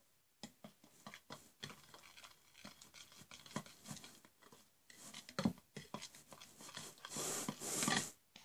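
Irregular scratching and rustling close to the microphone, from hands handling the slime-making materials, with a louder rasping stretch lasting about a second near the end.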